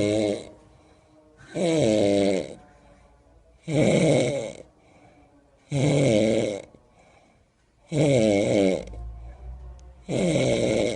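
Snoring: a loud snore about every two seconds, each lasting about a second, with a pitch that wavers up and down.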